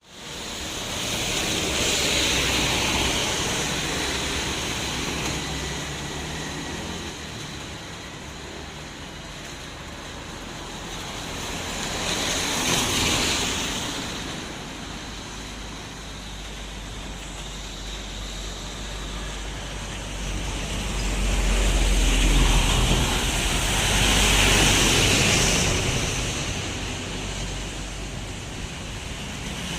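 Rain falling steadily while vehicles pass on a wet road. Each pass swells and fades as a tyre swish, about four times, and the passes in the second half carry a deeper engine rumble.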